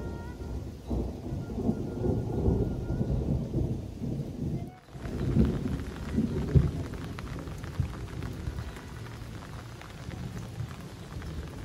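Rain falling on plants and a roof, with a low, uneven rumble underneath. About five seconds in there is a brief break, then a closer, crisper patter of drops.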